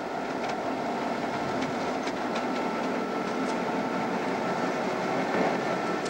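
Algoma Central diesel locomotives moving along the track: a steady run of engine and rolling-wheel noise with a few faint clicks from the wheels over the rails.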